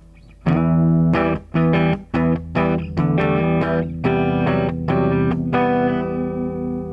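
Electric guitar played through an amplifier and a 10 Minute Dirt & Boost pedal: short strummed chords in a choppy rhythm starting about half a second in, then a last chord left ringing near the end.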